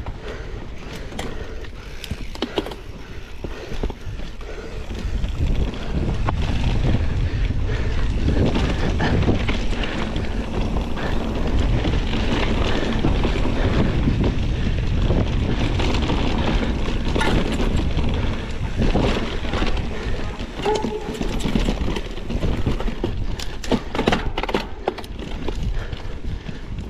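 Mountain bike riding down a dirt forest trail: tyres rolling over loose dirt, wind buffeting the microphone, and frequent knocks and rattles of the bike over bumps. It gets louder about six seconds in as the speed picks up.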